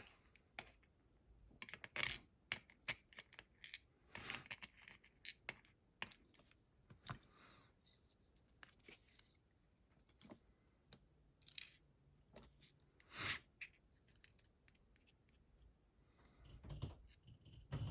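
Small metal parts clicking and tapping at irregular intervals: the pins and tools of a lock cylinder being taken apart by hand, pins dropping and rattling onto a hard surface, with a few short rustles.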